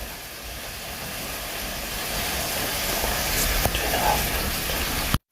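Mince frying in a pan: a steady sizzling hiss that grows slightly louder, with a couple of light clicks around the middle. It breaks off suddenly just before the end.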